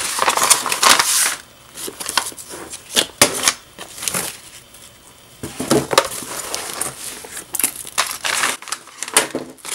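Paper and small planner supplies rustling, crinkling and clicking as they are handled and packed into a nylon toiletry bag. The rustling is busiest in the first second or so, then comes in irregular bursts with sharp taps.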